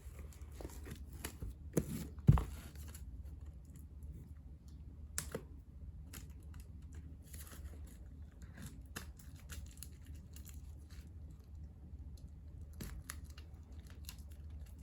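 Plastic shrink wrap on a CD album being torn open and crinkled, in scattered rustles and rips, with a sharp knock about two seconds in.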